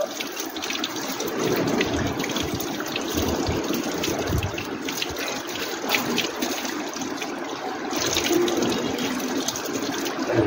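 Water running steadily from a wall tap and splashing over a small puppy being washed, and onto the concrete drain below.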